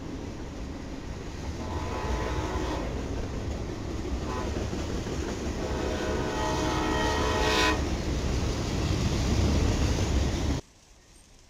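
Freight train passing close by with a steady rumble of wheels and cars. The locomotive's horn sounds a long blast, a short one, then a longer one. The sound cuts off suddenly near the end.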